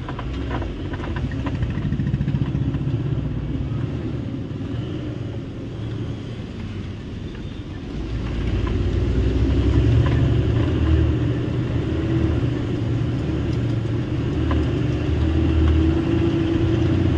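Truck's diesel engine running under load inside the cab while driving in slow town traffic, a steady low rumble that grows louder about eight seconds in as the truck pulls harder.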